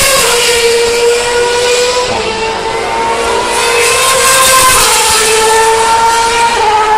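Formula One cars' 2.4-litre V8 engines running at high revs, loud and continuous, the engine pitch stepping and gliding several times as the cars shift gear through the corner.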